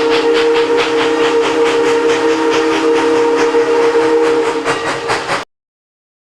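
Northern Pacific No. 328's six-chime 'Milwaukee' steam whistle blown in one long, steady chord of about five seconds, over the steam locomotive's rhythmic exhaust chuffs at about four a second. The recording cuts off suddenly a little after the whistle ends.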